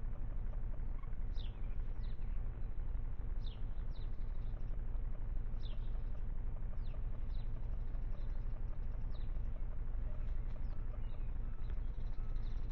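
A small bird's thin, high calls, each one short and falling in pitch, repeating every second or two, over a steady low rumble.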